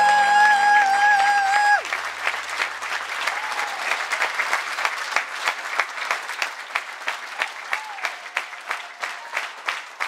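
Theatre audience applauding at a curtain call. A held final chord of the show's music ends about two seconds in, and the clapping then settles into rhythmic clapping in unison, about two to three claps a second.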